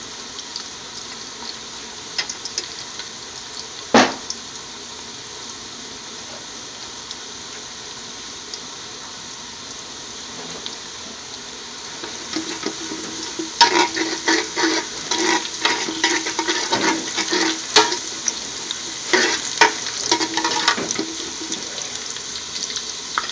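Sliced garlic sizzling in hot oil in a large metal pot, with one sharp knock about four seconds in. From about halfway, a metal spoon stirs the garlic and scrapes and clatters against the pot for several seconds.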